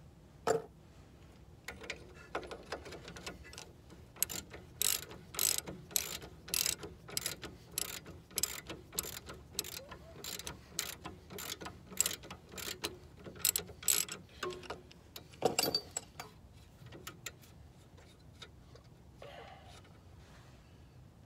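Socket ratchet wrench worked in short strokes on a bolt of a car's front suspension, a burst of ratchet clicks about twice a second for some thirteen seconds, ending in a louder clack.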